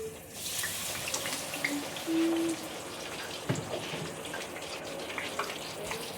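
Chicken tenders sizzling and crackling in hot oil in a deep fryer, a steady hiss that sets in suddenly just after the start, with scattered pops.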